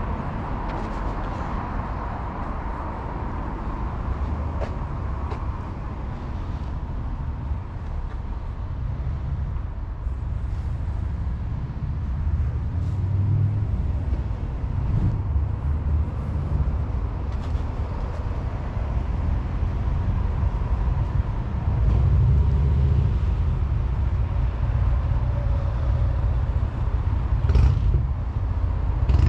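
Outdoor ambience dominated by a low rumble that swells and fades, louder in the second half, with a few faint clicks.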